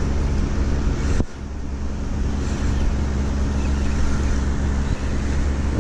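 Boat's outboard motor running steadily, a low even hum that briefly drops out about a second in.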